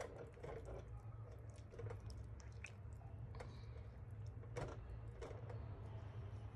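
Silicone spatula stirring a thick creamy chicken and vegetable sauce in a pan: soft wet squelches and scattered light clicks, over a faint low hum.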